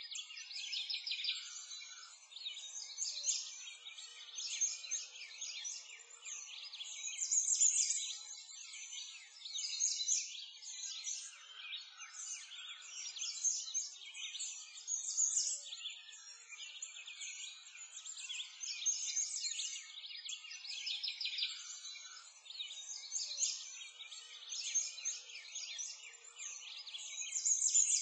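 A dense chorus of many birds chirping and singing at once, high-pitched, swelling and fading every couple of seconds.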